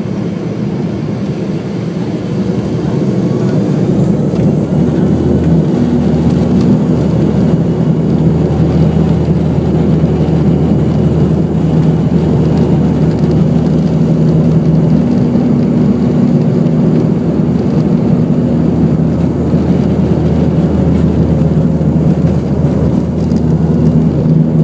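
ATR turboprop airliner's engines and propellers at takeoff power during the takeoff roll, heard from inside the cabin. A loud, steady drone that builds over the first four seconds and then holds.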